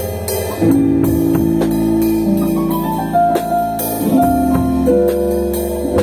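A live instrumental trio of electronic keyboard, electric bass and drum kit playing together. Sustained keyboard chords, with a short line of notes climbing about halfway through, over a low bass line and drums with cymbal strokes.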